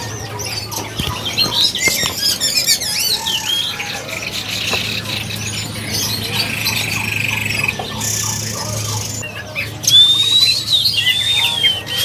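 Many caged songbirds chirping and warbling together, with a clear whistled phrase that rises and falls about ten seconds in. A steady low hum runs underneath.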